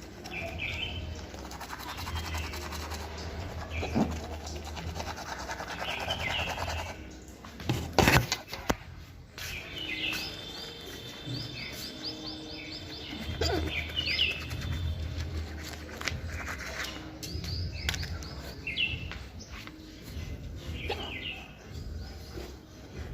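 Teeth being brushed with a toothbrush, a steady scrubbing rub, with birds chirping in the background. A loud sharp knock about eight seconds in.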